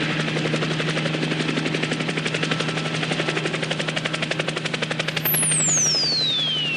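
Helicopter sound effect: a fast, even rotor beat over a steady engine hum. About five seconds in, a high whistle starts and falls steadily in pitch.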